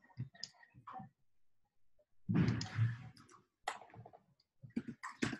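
Computer mouse clicking a few times, short sharp clicks, while an item is picked from a dropdown list. A louder, noisy sound lasting under a second comes a little over two seconds in.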